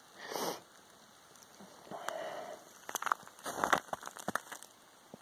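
Quiet rustling and crackling handling noise from a hiker moving with the camera: a short burst of noise just after the start, then a cluster of small crackles and clicks about three to four and a half seconds in.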